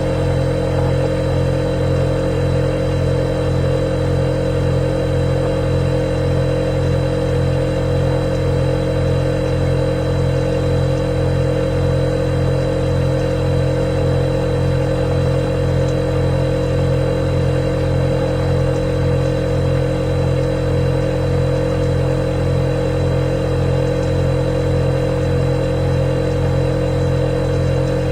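Refrigerator running with a steady, unbroken motor hum and a faint high whine above it.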